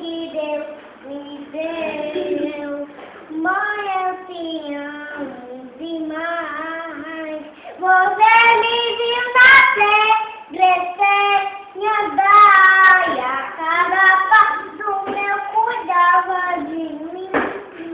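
A toddler girl singing on her own, without accompaniment, in short wavering phrases with breaths between them; she gets louder about halfway through.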